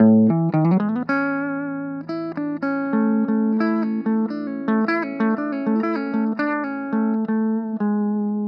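Clean electric guitar lead played on a Squier Classic Vibe Telecaster's bridge single-coil pickup through an Orange Crush 20 amp's clean channel. A quick run of single notes opens the passage, then picked notes ring on and overlap, and it ends on a held note.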